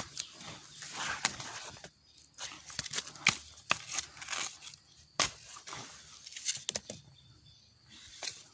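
Dry leaves and brush rustling and crackling, with irregular sharp snaps of twigs or stems being pushed through or broken.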